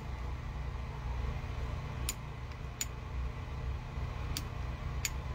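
Turn-knob switch on a metal lamp socket clicking four times as it is turned on and off, over a steady low hum.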